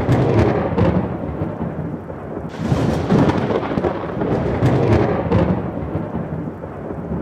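Thunderstorm sound: thunder rolling over rain, swelling in several long rumbles and fading toward the end.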